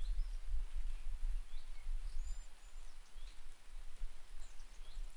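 Rain falling, with birds giving several short chirps throughout, over a low, fluctuating rumble.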